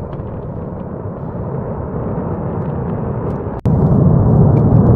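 Low, continuous rumble of a large weapons-depot explosion. It breaks off abruptly about three and a half seconds in, then comes back louder and deeper.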